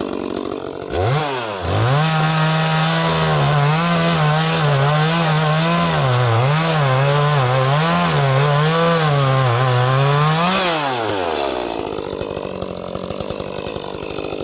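Echo 30cc two-stroke chainsaw revved up about a second in, then held at full throttle while cutting through a wood round for about nine seconds, its pitch wavering under load. It rises briefly as the cut finishes and drops back to idle.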